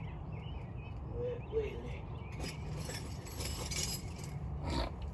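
Outdoor background of birds chirping over a steady low rumble, with a few short knocks and clicks in the second half.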